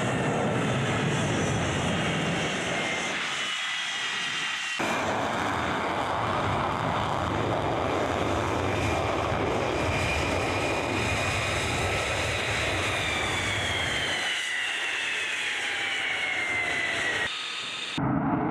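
F-35A Lightning II fighter jet engine, a Pratt & Whitney F135 turbofan, running at high power as the jet takes off and passes. A loud, steady jet rush carries whining tones that slowly fall in pitch as it goes by. The sound changes abruptly twice, at about five seconds and near the end.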